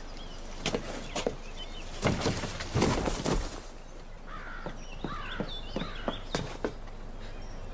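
Scuffle sounds as a man is struck down: several sharp thuds and knocks, the loudest cluster about three seconds in. Birds then chirp for a couple of seconds, and two more knocks come near the end.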